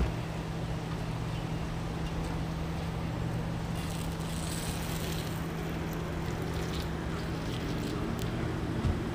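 Steady low hum of a vehicle engine idling, with a brief hiss midway and a couple of faint knocks.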